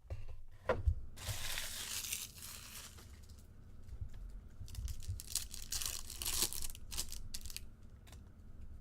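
A foil trading-card pack wrapper being torn open and crinkled: one long tear about a second in, then several short crinkling rustles later on.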